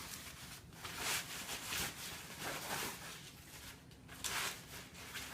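Packaging rustling and scraping as a guitar is lifted out of its box, in several short separate rustles.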